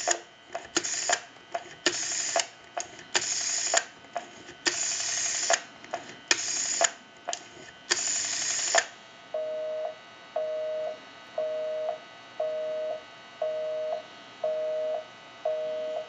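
Rotary dial on a telephone being dialed six times, each digit a burst of whirring and clicking as the dial runs back and pulses out, heard over the line amplifier. About nine seconds in comes a busy signal: a low two-tone beep, half a second on and half a second off, about once a second.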